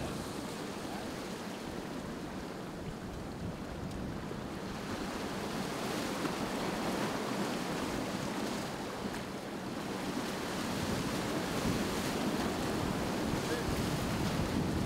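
Surf washing ashore with wind buffeting the microphone: a steady wash of noise that grows a little louder in the second half.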